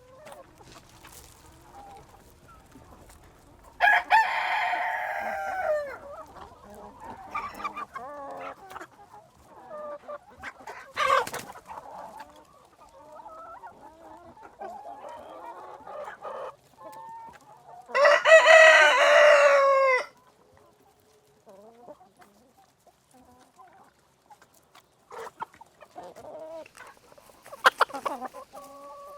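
A rooster crowing twice, two long calls a few seconds in and again past the middle, with quieter clucking between the crows.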